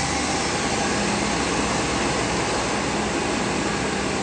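Chevy 305 V8 engine of a wood-gas-fired pickup running steadily just after starting, a level rushing drone: the engine is trying to run on wood gas.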